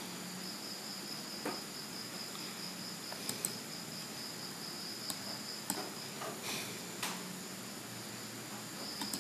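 Quiet room background with a thin, steady high-pitched tone that drops out for a few seconds near the middle, and a handful of faint clicks, typical of mouse clicks while working on a computer.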